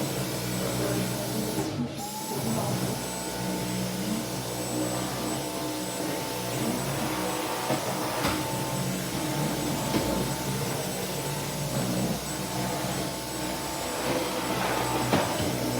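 Dyson vacuum cleaner running steadily: a constant rush of air with a steady motor whine, broken by a few short knocks.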